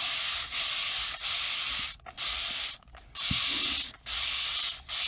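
Spray bottle of water misting in a quick series of hissing bursts. There are about seven in a row, each lasting about half a second to a second, with brief pauses between them.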